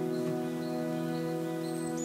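Calm instrumental background music holding a sustained chord, with faint high bird chirps, the clearest near the end.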